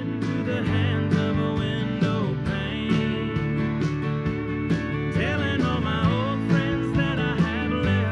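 A WAV music file playing back from a USB stick through the X32 mixer's aux-in 7/8 returns to the mains: country-style music with guitar and a steady beat.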